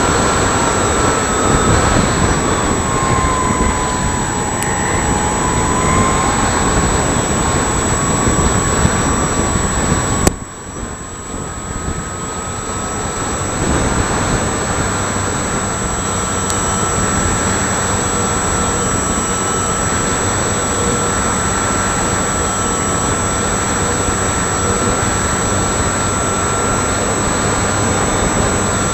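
Engine and propeller of a 75%-scale radio-controlled Piper Cub, heard through its onboard camera over rushing air. The engine runs steadily with a whining tone that sags and rises again in pitch. About ten seconds in there is a click and the sound drops off sharply, then builds back up over a few seconds.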